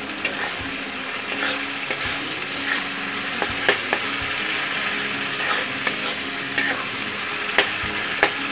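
Onion-tomato masala with ginger-garlic paste sizzling in oil in a kadai as it is fried down (kosha), stirred with a metal spatula. The spatula clicks and scrapes sharply against the pan now and then over a steady sizzle.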